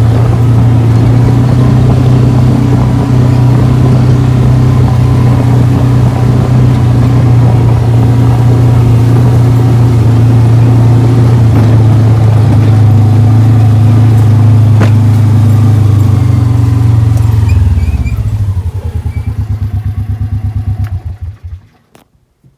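A small vehicle's engine running loud and close while driving. About 18 seconds in it slows to an idle, and it shuts off shortly before the end.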